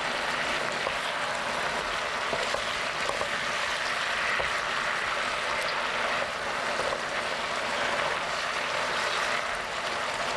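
Pork belly, squid and onion in a doenjang sauce sizzling and bubbling steadily in a wok over high heat while being stirred with a silicone spoon.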